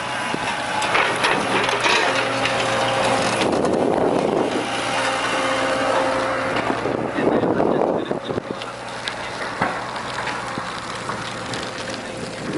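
Wind buffeting the microphone, with an engine running underneath as a steady low hum and scattered knocks and clicks.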